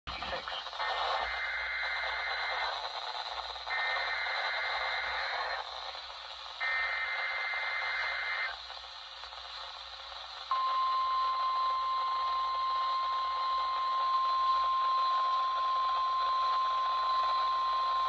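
NOAA Weather Radio Required Weekly Test heard through a RadioShack 12-254 weather radio's small speaker, over radio hiss. First come three bursts of SAME header data, each a buzzy digital screech about two seconds long. About ten seconds in, the warning alarm tone starts: one steady high tone that holds to the end.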